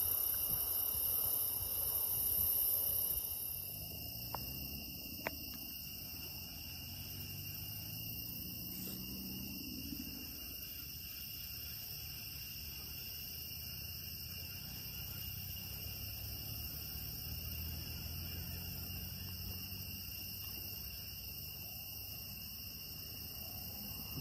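Steady chorus of night insects: several continuous high-pitched trills layered together. The sound steps down a little about four seconds in, and two faint clicks come shortly after.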